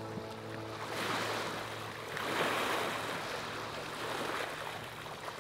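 Small waves washing in at the water's edge, swelling about a second in and again around two and a half seconds.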